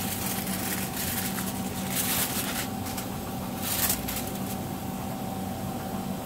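Aluminum foil sheet crinkling in several short bursts as it is handled, the loudest near four seconds in, over a steady machine hum.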